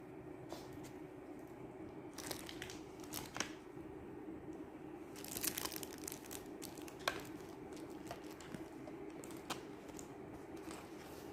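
Irregular crinkling and rustling as items are handled and packed into a bag, in short bursts with a sharper click about seven seconds in.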